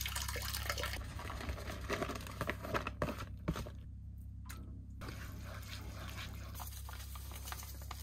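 Water from cooked pasta being poured off a saucepan past its lid and splashing down into an ice-fishing hole, for roughly the first three seconds. After that come quieter handling sounds at the pan over a steady low hum.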